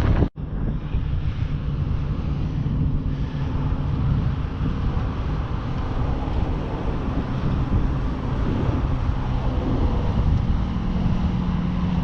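Boat's outboard motor running steadily, a low hum with a rumbling, noisy wash, and wind on the microphone. The sound drops out for an instant near the start.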